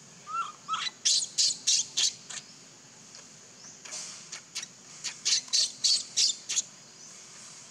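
Infant macaque crying in high-pitched squeals, two runs of short sharp calls, about three a second, the second run starting about four seconds in.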